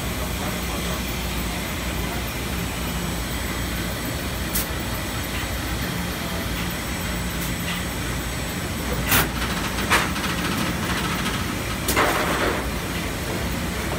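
Industrial laundry spreading-and-folding machine running with a steady low hum. A few sharp clacks come at intervals, and there is a short rattle near the end.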